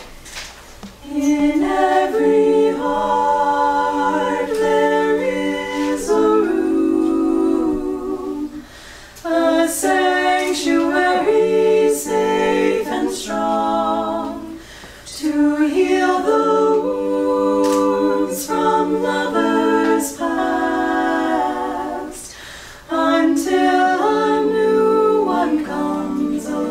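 Four-voice a cappella quartet singing sustained close-harmony chords in four phrases, with short breath breaks between them, starting about a second in.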